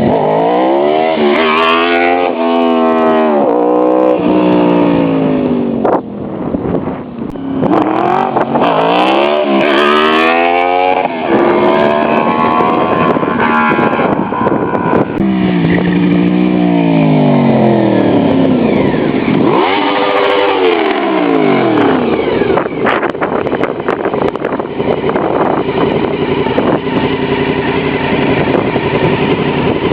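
Honda VFR 750F RC36's V4 engine revving hard in several pulls, its note rising and falling again and again, then holding a steadier note near the end.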